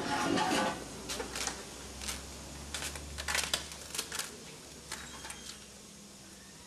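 Light handling noise: scattered small clicks and rustles, irregular, over a faint low hum.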